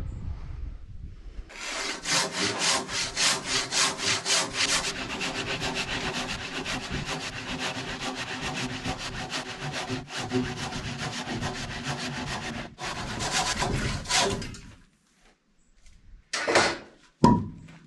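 Handsaw cutting by hand through a thick oak beam in steady back-and-forth strokes for about thirteen seconds; the going is slow because the oak is so dense, not because the saw is blunt. The sawing stops, then a couple of knocks near the end.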